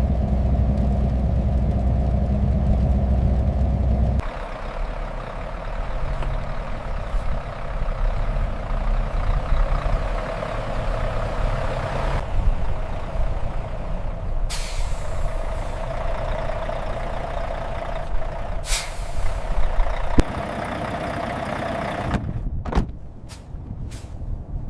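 Truck sounds across several edits: a heavy low engine rumble that cuts off about four seconds in, then steady running noise with two short, sharp air-brake hisses. A few clicks come near the end.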